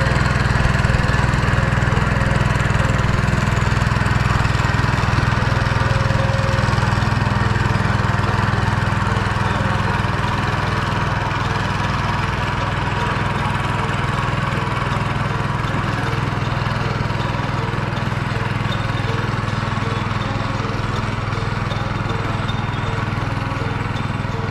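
A small engine running steadily at a constant speed, slowly growing fainter.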